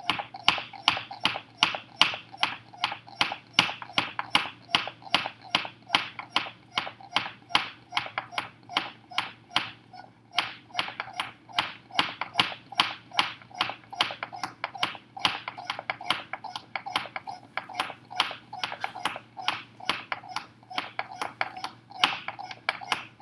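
Hand pump cap on a plastic soda bottle being worked steadily, a short puff of air with each stroke at about two to three strokes a second, with brief pauses about ten seconds in and near the end. Each stroke forces more air into the sealed bottle, compressing it.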